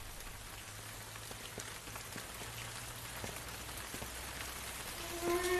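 A soft, steady hiss with faint scattered ticks, close to the sound of light rain. Slow string music comes in about five seconds in.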